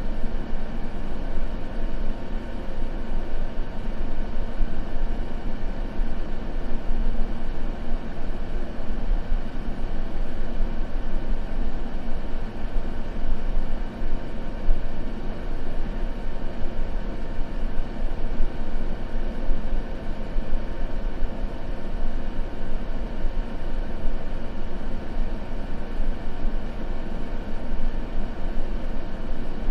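Continuous white noise: a steady, even rush weighted toward the deep end, with a faint steady hum running through it and no crackles or other events.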